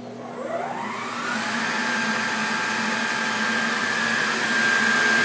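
Spindle motor of an Emco PC Mill 50 benchtop CNC mill spinning up after cycle start, a whine rising in pitch over about a second and a half, then running steadily at speed. The mill is running its program with no material in it, so nothing is being cut.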